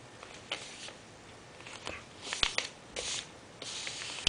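A sheet of paper rustling and sliding on a tabletop as it is folded in half and pressed flat, heard as a run of short swishes with a few light ticks.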